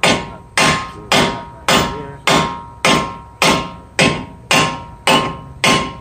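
Hammer strikes on the end of the front CV axle in a Kia Rio/Forte wheel hub, knocking the axle inward to free it from the hub. About eleven steady, evenly spaced blows, nearly two a second, each with a short metallic ring.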